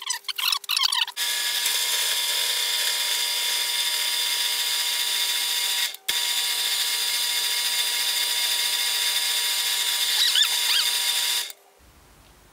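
Drill press motor running a homemade milling spindle with a steady whine, being run in to see whether its overly tight bearings heat up. About a second of handling noise comes first, and the running cuts off abruptly near the end.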